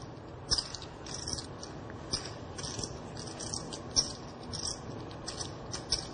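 Clay poker chips clicking together as a player handles and riffles a stack, in short irregular bursts about once or twice a second, with a few sharper clacks.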